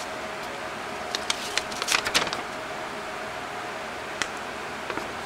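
Paper crackling and rustling as a folded instruction manual is handled and opened: a run of quick crackles from about one to two and a half seconds in, then a few single light ticks, over a faint steady hum.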